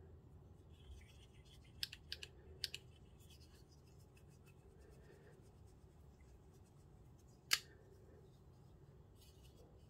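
KA-BAR Warthog tanto folding knife being worked by hand: a few light metallic clicks about two seconds in, then one sharp snap of the blade into place later on.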